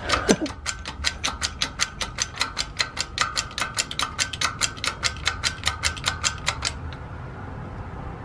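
Hydraulic bottle jack on a shop press being pumped by its handle, giving rapid, even clicking, about six a second, that stops about seven seconds in; the press is pushing a worn rear wheel bearing out of a motorbike hub.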